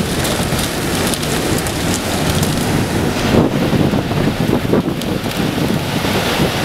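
Loud storm wind and rain near a tornado, a dense gusty rush with wind buffeting the microphone.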